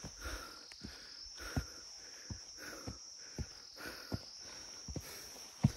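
A steady high-pitched drone of forest insects, with a climber's footsteps thudding on the trail about every 0.7 s and hard breathing between them. The heaviest step lands near the end.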